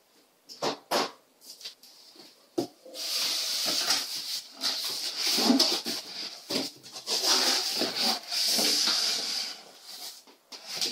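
Cardboard shipping box being opened by hand: a few short taps and knocks, then several seconds of cardboard flaps scraping and rubbing against each other and the inner box as they are folded back.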